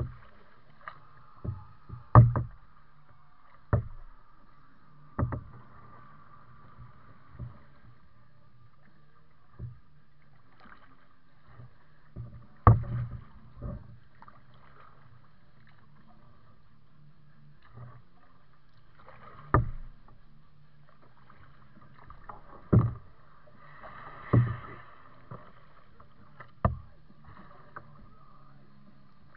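Kayak paddling: sharp, irregularly spaced knocks from the paddle strokes on a plastic kayak's hull, a few seconds apart, over a steady low hum.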